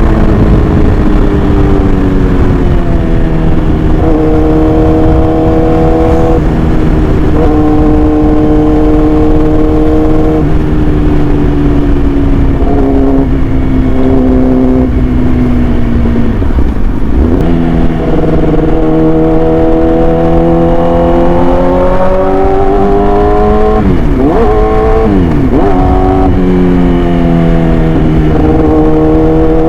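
Yamaha R6 inline-four sport bike engine through an SC-Project exhaust, running under changing revs. Its pitch steps up sharply a few times and sags slowly in between, with several quick drops and rises near the end.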